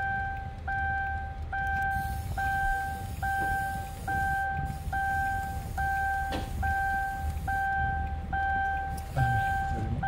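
Car's electronic warning chime in a 2007 Hyundai New Equus, one even tone repeating a little more than once a second, over a low steady rumble, with a single click about six seconds in.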